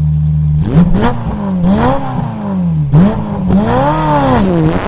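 A car engine revving up and down several times, its pitch climbing and falling in long sweeps after a brief steady hum at the start.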